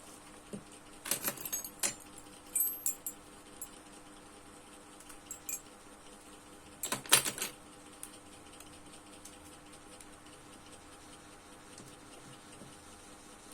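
Small hard metallic objects clinking and rattling in a few short handled clusters, the loudest about seven seconds in, over a faint steady hum.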